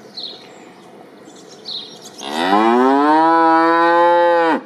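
A cow mooing: one long call that begins about two seconds in, rises in pitch at first, holds steady, then breaks off suddenly near the end.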